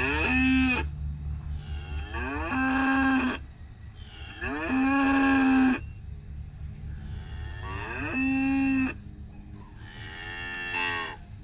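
Recorded cows mooing, played back through a soundboard's amplifier and speakers: five long moos a couple of seconds apart, over a steady low hum.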